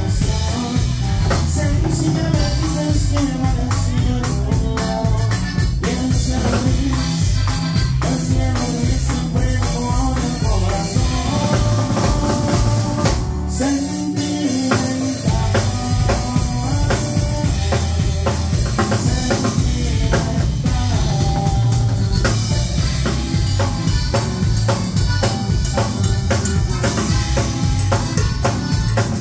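Live band music led by a button accordion over drum kit and bass, loud and steady. About 13 seconds in, the drums and bass drop out for a moment before the full band comes back in.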